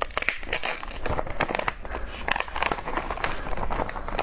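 Thin plastic bag crinkling and rustling in rapid, irregular crackles as hands pull it open and lift a whole crab out of it.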